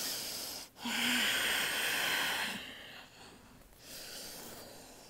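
A woman breathing audibly through a held yoga pose: slow, deep, breathy breaths in and out. The strongest is from about one to two and a half seconds in, and a fainter one comes near the end.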